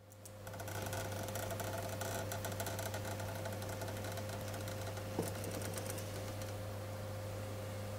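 Small servo motors at the joints of a robot built from tree branches, whirring and clicking rapidly as the joints move, over a steady electrical hum. One sharper click comes about five seconds in, and the rapid clicking dies away shortly after.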